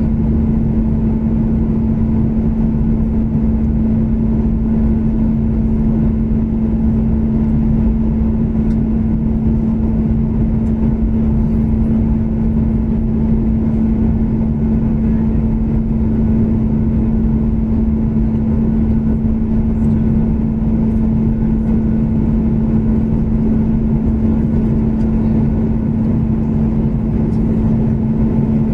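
Steady cabin noise of a Boeing 737 MAX in flight, heard from a window seat beside the engine: a low rumble of airflow and CFM LEAP-1B turbofans with a constant low hum.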